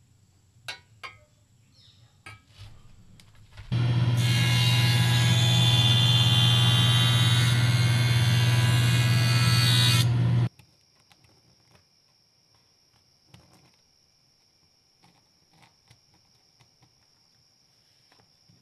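Handheld electric drill running steadily for about seven seconds and then stopping abruptly, with a few light clicks and knocks before it starts and faint clicks after it stops.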